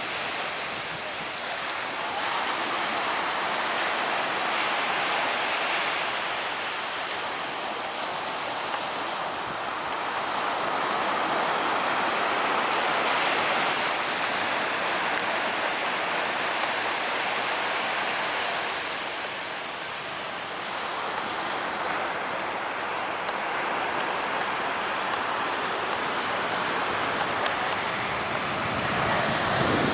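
Surf washing onto the beach: an even rushing that swells and eases every few seconds, growing louder near the end.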